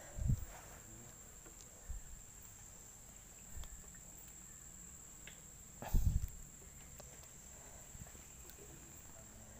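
Insects buzzing steadily at a high, unchanging pitch, with two dull low thumps, one just after the start and a louder one about six seconds in.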